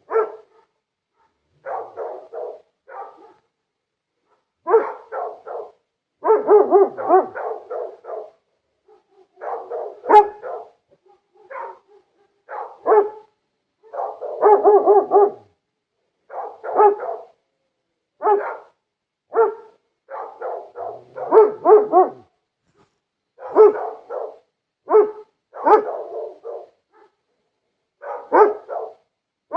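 A dog barking in repeated bursts of several quick barks, each burst cut off by a short dead-silent gap.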